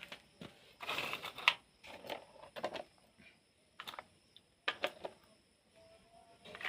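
Plastic toy vehicles being handled, giving irregular clicks and short rattles. A clattering burst comes about a second in, with the sharpest click near its end.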